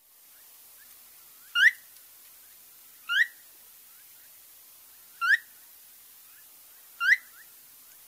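Phainopepla giving its soft, upslurred 'what?' call, its most commonly heard call: four clear rising notes about every one and a half to two seconds, with fainter notes between, over a light recording hiss.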